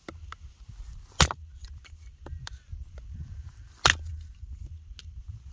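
Small Hultafors axe chopping firewood into kindling: two sharp strikes about two and a half seconds apart, with light knocks and clatter of wood pieces between.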